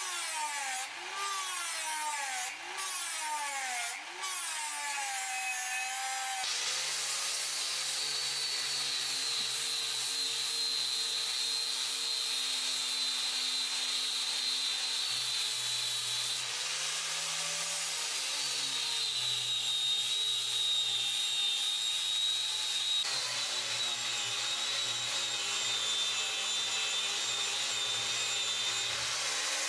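A small rotary tool's abrasive wheel grinding the steel edge of a meat cleaver, its motor pitch repeatedly dipping and recovering. About six seconds in, an angle grinder with a sanding disc takes over, running with a steady high whine as it sands the flat of the steel blade.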